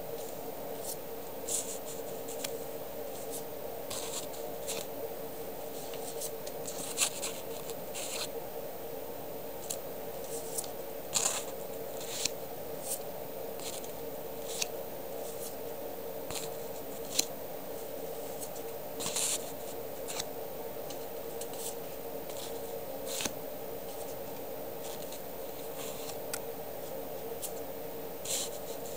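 Paper sticker labels (USPS Priority Mail label stock) rustling and crinkling as they are handled and shown, in short scattered crackles over a steady low hum.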